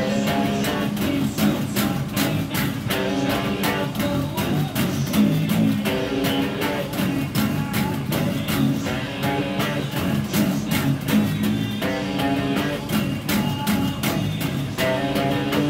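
Electric bass guitar played through a small battery-powered amp, a busy rhythmic riff of many quickly plucked notes.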